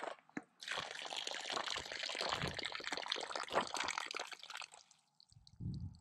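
Water from a windmill-driven well pump pouring and splashing out of the outlet pipe at the well head. It starts about half a second in and stops shortly before the end.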